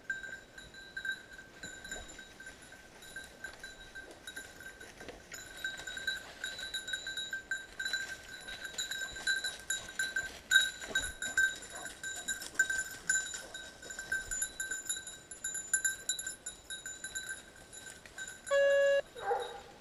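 A hunting dog's collar bell jingles irregularly as the dog moves about close by, busier from about five seconds in. Near the end a dog gives a brief whine.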